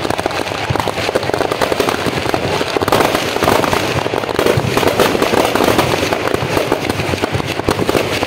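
Many firecrackers packed inside a burning Ravana effigy going off in a dense, rapid, continuous crackle of pops.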